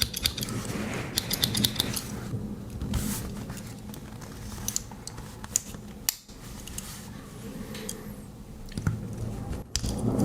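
Small sharp metal clicks from a Victorinox Farmer X Alox Swiss Army knife's scissors and tools being worked by hand. A quick run of clicks comes in the first two seconds, then scattered single clicks follow.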